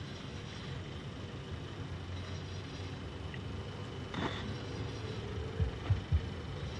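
A short scratchy hiss about four seconds in as a wooden match flares to light a small candle, over a steady low hum and hiss, with a few low thumps near the end.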